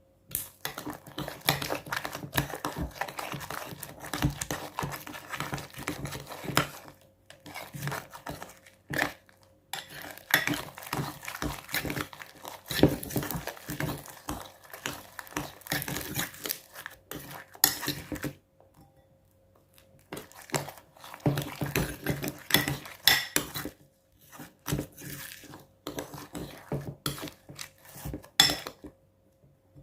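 A utensil stirring and scraping in a bowl as glue and borax are mixed into slime, with clinks and scrapes in several long bursts broken by brief pauses.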